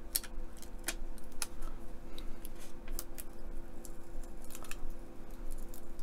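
Irregular small clicks and scratches of a craft knife blade picking at the backing paper of a self-adhesive wooden deck sheet, trying to lift it off, over a faint steady hum.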